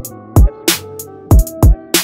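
Hip-hop music with a heavy beat: deep, booming bass-drum hits that drop in pitch, sharp snare strokes between them, and sustained notes underneath.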